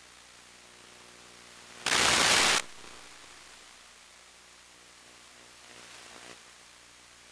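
Static hiss on the audio channel of a 1.3 GHz analog FPV video link. A sudden loud burst of static comes about two seconds in and lasts under a second, and a fainter one follows near six seconds.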